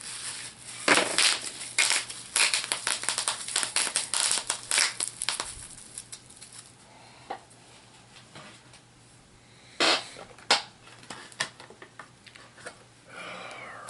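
Crinkling and crackling of plastic packaging being handled, dense through the first half, then a few isolated sharp clicks near ten seconds in.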